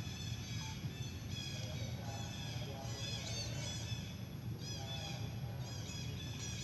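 Young macaque monkey squealing and crying in a rapid string of short, high-pitched arching calls, over a low steady background rumble.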